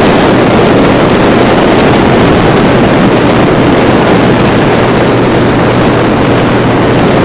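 Motorboat under way at steady speed: the engine's even drone with a constant low hum, under loud wind noise on the microphone.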